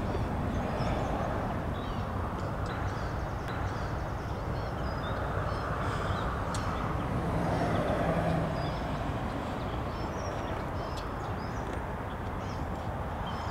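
Outdoor roadside ambience: a steady rumble of road traffic that swells as a vehicle passes about seven to eight seconds in, with scattered faint bird calls.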